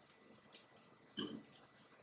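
Near-silent room tone, broken about a second in by one short, low sound.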